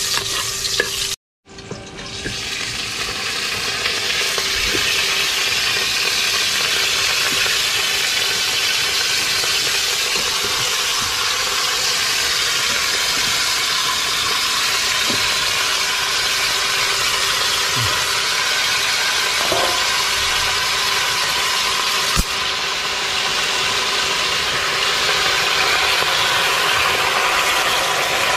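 Steady sizzling hiss from a pot cooking over a wood fire. It breaks off for a moment just after the start, builds back over a couple of seconds and then holds, with a single sharp click later on.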